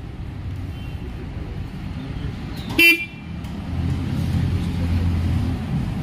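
Yezdi Roadster motorcycle's electric horn giving one short toot about three seconds in, over a steady low rumble.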